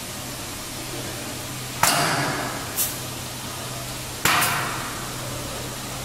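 Pneumatic piston filling machine cycling: two sharp hisses of air, about two and a half seconds apart, as its cylinder strokes, each trailing off over a second with a short puff just after. A low steady hum of a small air compressor runs underneath.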